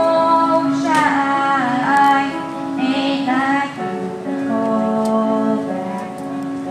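A female vocalist singing a slow pop ballad with instrumental accompaniment. Her voice fills the first few seconds, and steadier held notes carry on in the second half.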